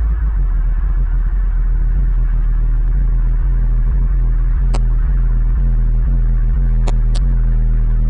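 Loud, steady low electrical hum, with three sharp clicks near the end.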